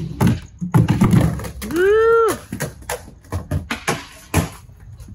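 Skateboard wheels rolling on a wooden ramp with a run of clacks and knocks from the board, and a short high call that rises and falls about two seconds in.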